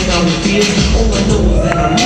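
Dance music with a heavy, repeating bass beat, played loud.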